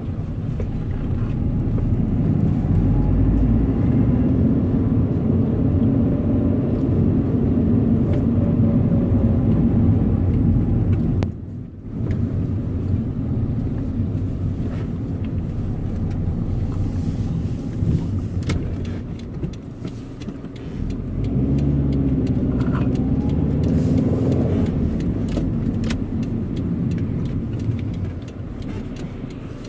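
A stock 2011 Subaru WRX's turbocharged 2.5-litre flat-four engine and exhaust running as the car is driven, with the revs changing. There is a short break in the sound about a third of the way through, and the revs rise again past the two-thirds mark.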